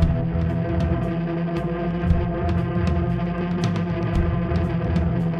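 Live instrumental post-rock played by a power trio: an eight-string electric guitar run through effects pedals holds sustained notes over electric bass and a drum kit. The drums strike regularly and the cymbals crash.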